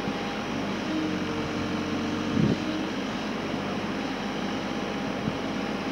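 Kubota RX-306E mini excavator running with its engine and hydraulics working as the boom, arm and bucket move, its steady hum shifting in pitch about a second in. A short clunk about two and a half seconds in, with a lighter knock near the end.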